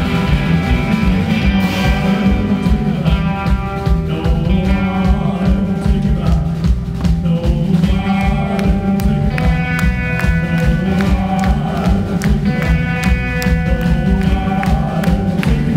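Live country band music playing at full volume, with a steady drum beat under guitar.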